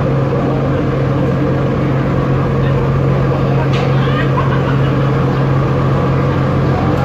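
Steady low drone of a ship's machinery heard on deck, a constant hum with background chatter of a crowd.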